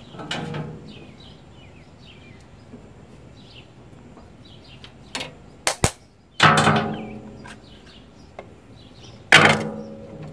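Metal tools and parts being handled while the ignition points of an Onan generator engine are got at: a few sharp clicks, then two loud metallic clanks that ring on, about three seconds apart. Birds chirp faintly in the background.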